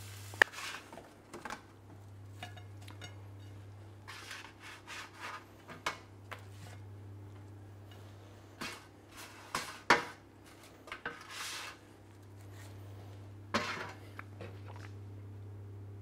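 Utensils and a frying pan scraping, rubbing and clinking against a plate while food is dished up, with a scattering of light knocks, over a faint low hum.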